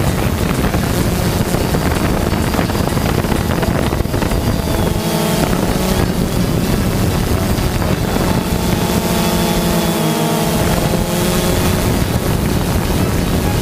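Camera drone's motors and propellers running steadily, with heavy wind noise on the microphone; a cluster of whining tones wavers in pitch about five seconds in and again a little past the middle.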